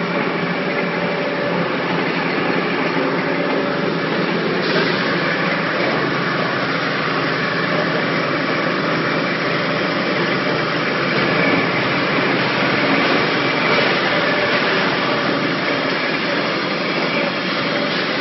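Coconut shell crusher, a 75 kW shredder driven by an electric motor through a gearbox, running steadily with a constant whine over its mechanical noise. About five seconds in the sound turns brighter and harsher and stays that way.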